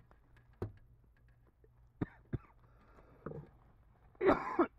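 A few scattered light knocks and scrapes from handling and moving about in a crawlspace, with a short grunt or half-spoken sound near the end.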